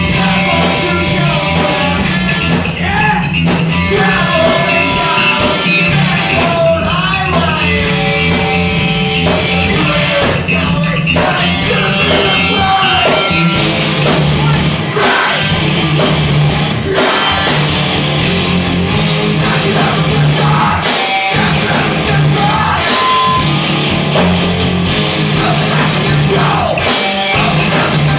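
Live heavy rock band playing loud: electric guitar, bass guitar and drum kit, with a singer's vocals through a microphone.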